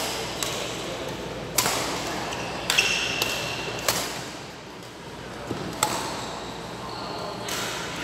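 Badminton rackets striking a shuttlecock in a rally: about eight sharp, irregularly spaced hits, ringing in a large hall.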